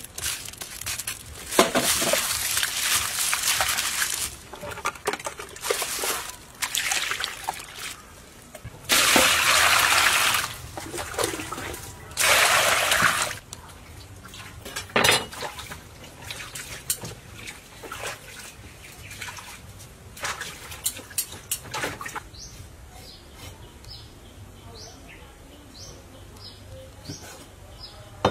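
Water poured and sloshed in a basin in three bursts of a few seconds each, with sharp clinks in between. From about five seconds before the end, a bird gives short rising chirps about once a second.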